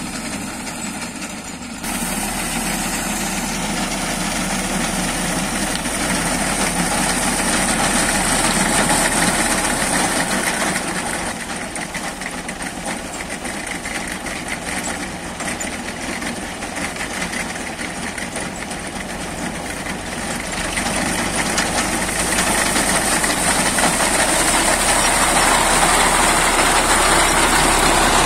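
A Belarus tractor's diesel engine running under load, with the rattle of a front-mounted wheat reaper's cutter bar. The sound steps up about two seconds in and grows louder over the last third.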